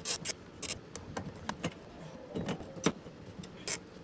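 Hard plastic and metal parts being handled and fitted by hand: irregular sharp clicks and light clatter, with about seven louder knocks spread through it.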